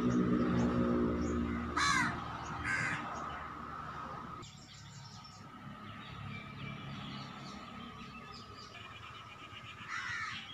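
Crows cawing: two harsh caws about two and three seconds in, then another near the end.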